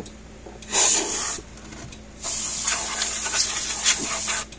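Hollow plastic case of a fence energizer being tipped and shaken to clear it out, with loose debris such as a plastic battery terminal cover rattling and sliding inside. The sound comes in two bursts: a short loud one about a second in, then a longer one lasting most of the rest.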